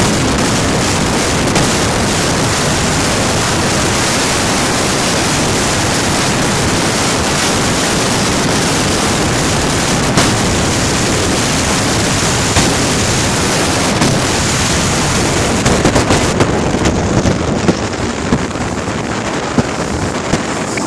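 Loud, steady rush of wind buffeting the microphone, with water and the running Sea-Doo RXT-X personal watercraft underneath, at full speed around 67 mph. About sixteen seconds in the rush thins and turns choppy with short splashy bursts as the craft comes off speed.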